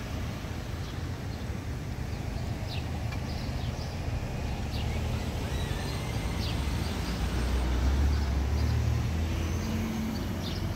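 Street ambience with a car's engine and tyres going by, a low rumble that swells to its loudest about eight seconds in and then eases. A few brief high chirps sound now and then.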